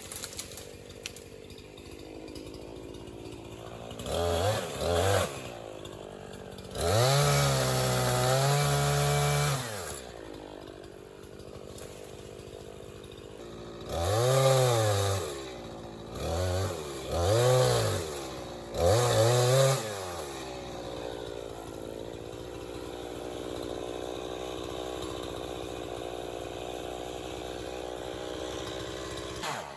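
50cc two-stroke chainsaw running, revved up several times for a second or two at a time, the longest about seven seconds in, and dropping back to a lower run between revs.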